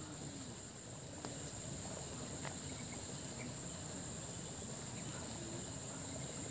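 Insects chirring in a steady high-pitched drone, with a single faint click about a second in.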